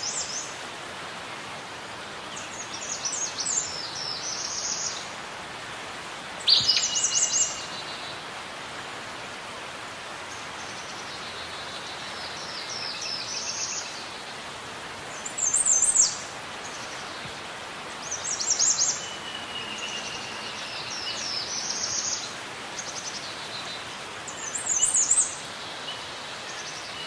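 Birds singing, short high chirping phrases repeating every few seconds over a steady background hiss.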